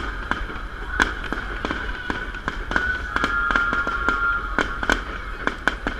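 Fireworks salute going off: a run of irregular sharp bangs and pops, several a second, over a steady background hiss, with a high steady whistling tone for about a second midway.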